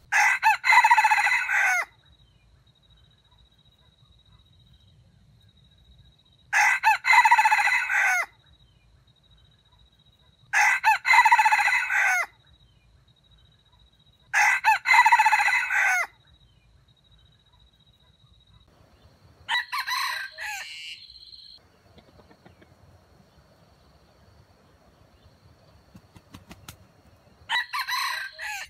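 Red junglefowl rooster crowing: four loud, short crows a few seconds apart, then a shorter, different call after a longer pause, and another crow starting at the very end. A faint steady high insect tone carries on between the crows.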